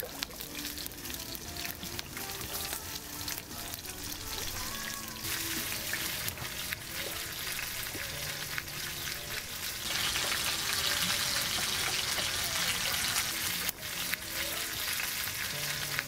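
T-bone steak searing in a cast-iron skillet, sizzling steadily in hot fat. The sizzle grows louder about five seconds in and louder still from about ten seconds in.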